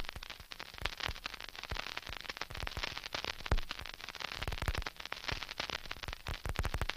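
Crackling static: a dense, irregular run of sharp clicks and pops over a faint hiss, fairly quiet.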